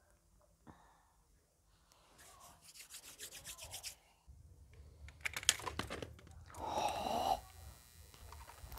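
A hand trowel scraping and crunching into dry soil in a run of quick strokes. Then the camera is knocked and dropped: handling rumble, a sharp thump, and rustling and crunching as it lands in bark mulch.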